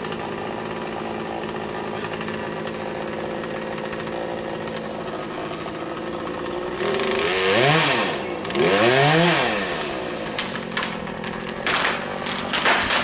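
Chainsaw running steadily at idle, then revved twice in quick succession, each rev rising and falling in pitch. Several sharp knocks come near the end.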